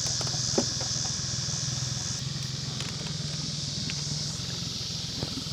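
Boat motor running steadily at low speed, a constant low hum, with a steady high insect chorus over it and one light knock about half a second in.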